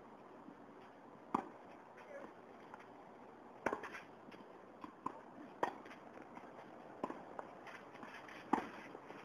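Tennis ball struck back and forth with racquets in a rally: four sharp pops about two seconds apart, the loudest near the end, with softer ticks of the ball bouncing in between.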